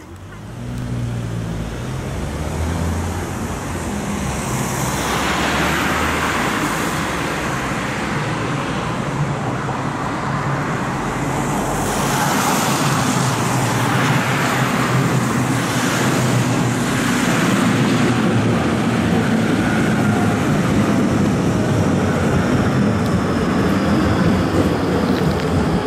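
Road traffic on a wet street: cars passing with a swelling tyre hiss, twice over. Then a tram rolls by close in the last several seconds, with a louder steady rumble.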